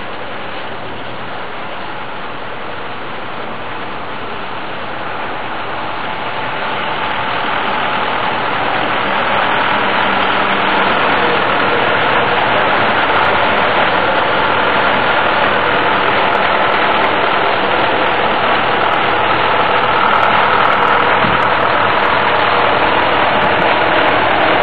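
1951 Farmall M tractor's four-cylinder engine running, growing louder over the first ten seconds or so and then holding steady.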